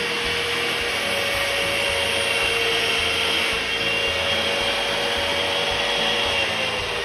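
Electric grinder with a diamond disc running steadily with a whine, a cutter bit held against it at first for sharpening. About six seconds in the motor is switched off and the whine falls in pitch as it winds down.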